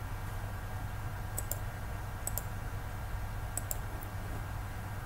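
Light clicks at a computer as the slideshow is started: a few short clicks, most in quick pairs like a press and release, over a steady low hum.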